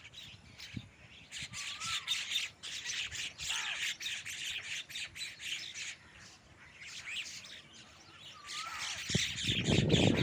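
A flock of birds chirping and squawking, many overlapping high calls coming in two spells. Louder, lower-pitched calls start near the end.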